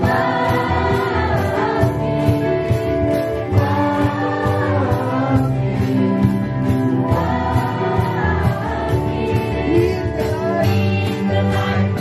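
Live gospel praise band: women's voices singing phrases together over electric guitars, keyboard and a steady beat.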